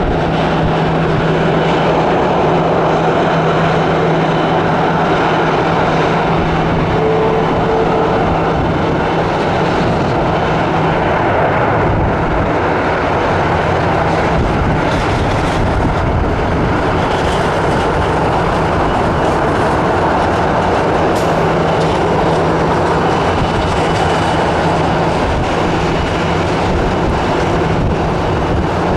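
Airbus A330-300 jet airliner landing: the loud, steady noise of its engines as it touches down and rolls out along the runway.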